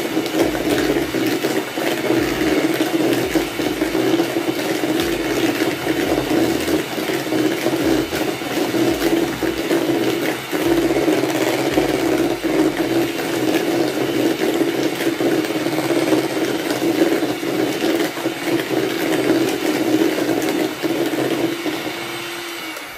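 Electric hand mixer running steadily at one speed, its beaters creaming butter and sugar in a plastic bowl, with frequent small knocks as the beaters hit the bowl. The motor fades near the end as it is switched off.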